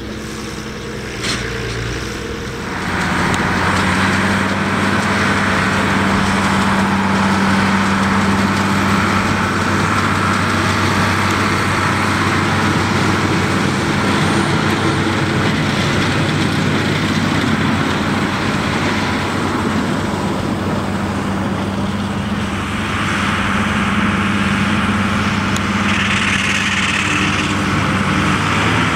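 White 195 tractor running steadily under load while pulling a New Holland FP230 forage harvester that is chopping alfalfa, the engine's drone mixed with the harvester's cutterhead and blower. The sound grows louder about three seconds in and eases briefly around two-thirds of the way through.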